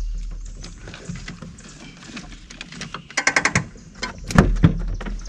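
Knocks and thumps in a small fishing boat, as gear and feet hit the hull: scattered clicks and ticks, then two heavy thumps close together near the end. A low rumble left over from an earlier knock fades out at the start.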